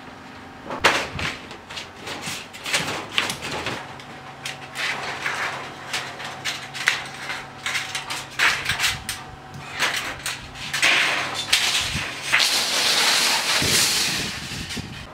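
Thin metallic strips cut from milk packaging crinkle and rattle as they are handled and shaken, a dense run of sharp clicks and rustles. It is busiest and loudest a little before the end.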